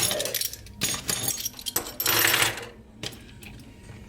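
Light clatter and clicks of small metal tools and parts being handled on a work bench, with a brief scraping rustle a little after two seconds.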